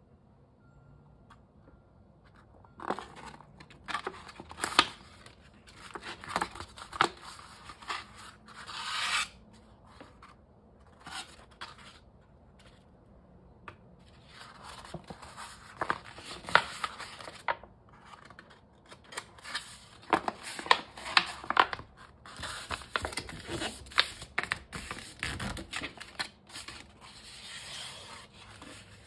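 A paper plate handled by hand on a cutting mat: the paper rubbing and scraping against the mat and fingers, with sharp crackles. The noise comes in two spells with a pause of a few seconds between. Near the end the plate is bent in half with paper crackling.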